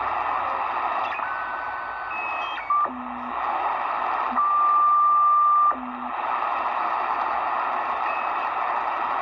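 Degen DE1103 shortwave receiver hissing with band static while being tuned across the 80-metre ham band in single-sideband mode. Steady whistles of carriers start and stop at different pitches as the frequency steps. The loudest, a high steady whistle, holds for over a second about halfway through, with brief low tones just before and after it.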